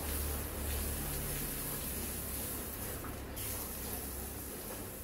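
Water from a garden hose jet spraying onto wet paving tiles: a steady hiss of spray.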